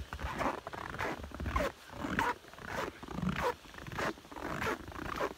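Footsteps crunching in fresh snow, a step a little more than every half second.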